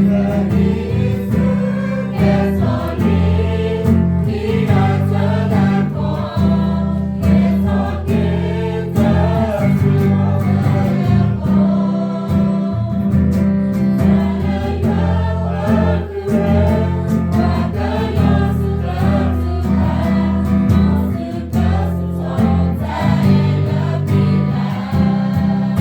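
Group of voices singing together, choir-style, over a steady bass accompaniment.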